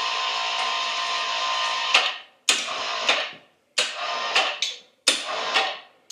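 Hoist lifting a truck rear axle: it runs steadily for about two seconds, stops, then runs in four short jogs about a second and a quarter apart.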